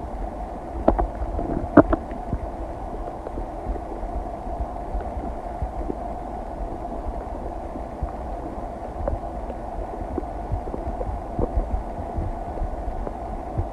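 Human stomach and intestines digesting a meal: two short, sharp gurgles about one and two seconds in, then a steady low background with a faint hum.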